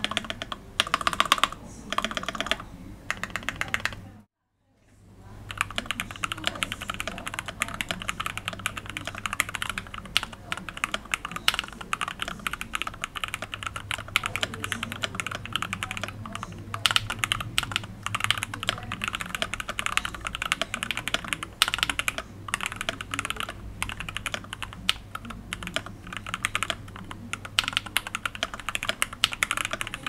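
Typing on a mechanical keyboard built with lubed and filmed Gateron Milky Top Black linear switches and PBT keycaps in an acrylic-bottom IDOBAO ID80 case with foam inside: dense, fast keystroke clacks. A few short bursts of typing come first, then a brief silence about four seconds in, then steady continuous typing, with a low steady hum underneath.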